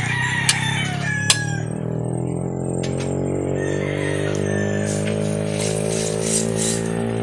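A rooster crows in the first second or so over steady background music with sustained notes. Two sharp clicks fall near the start.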